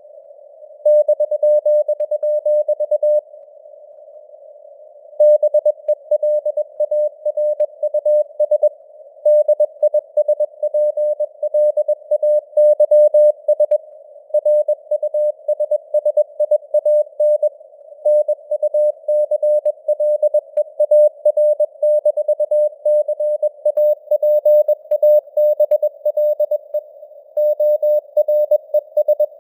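Morse code (CW) at 21 words per minute: a single mid-pitched tone keyed on and off in dots and dashes, over a band of simulated radio hiss that shows between the characters. The keying stops for about two seconds near the start, leaving only the hiss.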